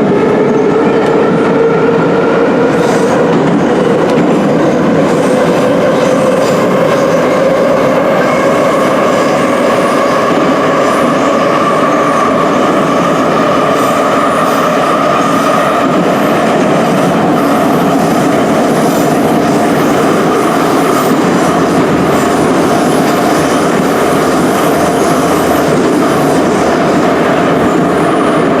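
Ezh3/Em-508T metro train running between stations, with wheel-and-rail rumble and a whine from its traction motors and gearing that rises slowly in pitch over the first half as the train gains speed, then levels off.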